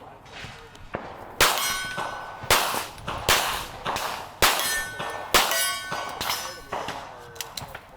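About six semi-automatic shots roughly a second apart, each followed by the ringing clang of a struck steel target plate.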